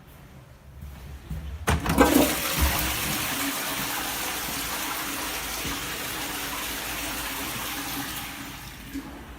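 DUX cistern flushing: a click of the flush mechanism about two seconds in, then a loud rush of water that settles into a steady flow and fades near the end.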